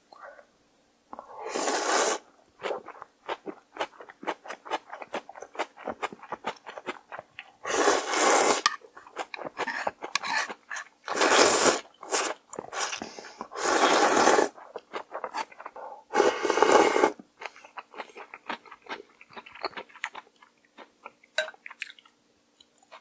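Close-miked eating of cold soup with thin somyeon noodles and raw seafood: five loud slurps of wet noodles, each under a second, with quick moist chewing and mouth clicks in between.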